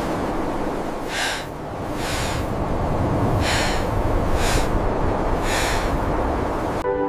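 Steady wind noise with four short hissing sounds, each about half a second long, spaced roughly a second apart. Soft music comes in at the very end.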